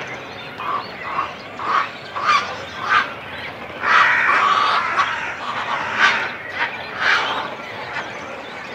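Cormorant colony close up: adults and chicks calling at the nest. A run of short calls about every half second, then a louder, longer call about four seconds in, followed by a few more single calls.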